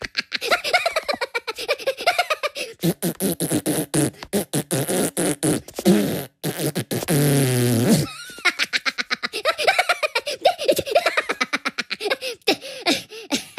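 Cartoon Minion voice clips: quick high-pitched gibberish chatter and laughter, with a long sound falling in pitch about halfway through.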